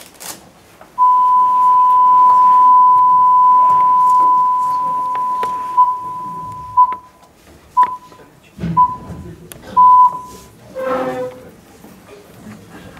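Television test-card tone: one steady high beep held for about five seconds, then four short beeps of the same pitch about a second apart.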